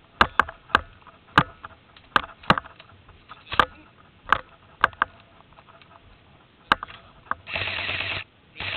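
A run of sharp, irregular clicks and snaps, then two short bursts of steady hiss near the end.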